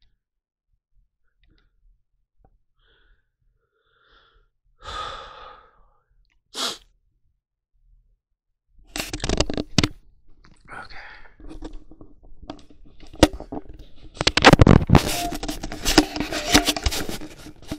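Quiet at first; about five seconds in, a short breathy burst like a sneeze or sharp exhale. From about nine seconds on, a run of loud rustling, clicks and knocks from the camera being handled and moved, loudest near the end.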